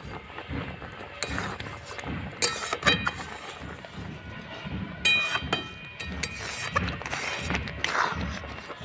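A metal spatula scraping and clinking against a large metal karai as rosella petals are stirred, with a few sharp strikes that ring briefly, loudest a little over two seconds in and again about five seconds in.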